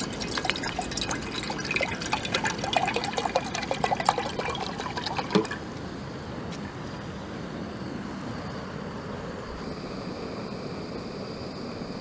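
Water poured from a plastic bottle into a mess tin, splashing and gurgling for about five and a half seconds, then the steady hiss of a small butane canister stove burning under the tin to bring the water to the boil.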